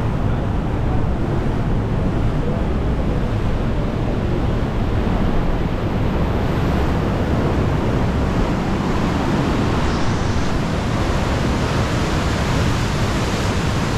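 Ocean surf washing into a sea cave: a steady rush of breaking and receding water, its hiss growing brighter in the second half, with some wind on the microphone.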